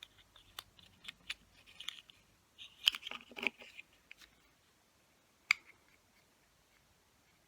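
Small plastic model-kit parts clicking and rattling as they are handled and pressed together. There is a quick run of clicks in the first two seconds, a louder cluster about three seconds in, and one sharp click a little past halfway.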